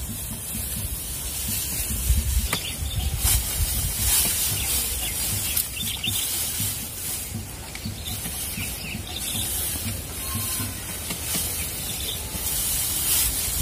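Dry rice straw rustling and crackling as rice sheaves are handled and beaten against a wooden threshing rack, with a few sharp knocks.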